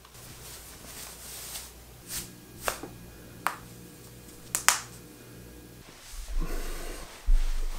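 Dressing and settling into bed: five sharp snap-like clicks over about two and a half seconds, the last two in quick succession, as the pajama top is fastened. Near the end comes a low rustling thump of a body settling onto the bedding.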